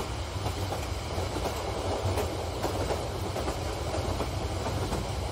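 Long electric model freight train rolling past on sectional toy track: a steady low rumble with rapid clicking of the wheels over the rail joints.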